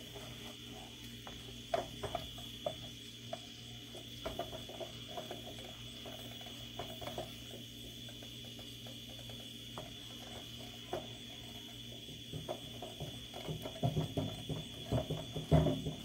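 A wooden spoon scrapes and knocks against a cast-iron skillet while charred, smoking egg yolks are stirred as they cook down for egg yolk oil. The scrapes come irregularly and grow busier and louder near the end, over a steady high tone and a low hum.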